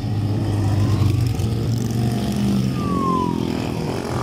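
A column of cruiser and bobber motorcycles riding past one after another, their engines running loud and low, with a short falling whine about three seconds in.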